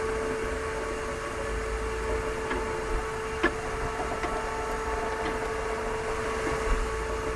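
A steady mechanical hum over a low rumble and hiss, with a few faint clicks.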